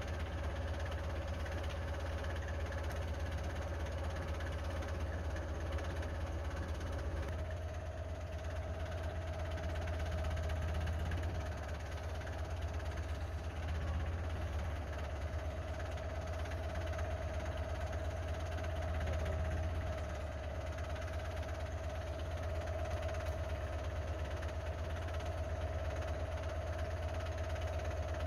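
Old tractor-based forklift's engine running steadily at a low rumble, with a whine in it that steps up slightly in pitch about seven seconds in and then holds.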